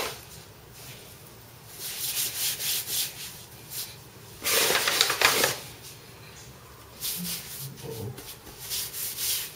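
Floured hands rolling and rubbing a long log of scallion pancake dough across a wooden board, a rubbing sound in several bouts, the loudest about halfway through.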